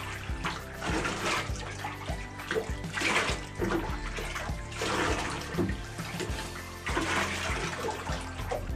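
Bathwater splashing and sloshing as a dog is washed and rinsed in a bathtub, in several swells. Background music with a steady low bass plays under it.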